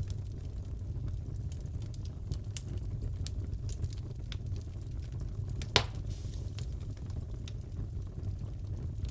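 Fireplace fire crackling: a steady low rumble with scattered small pops and one louder crack about six seconds in.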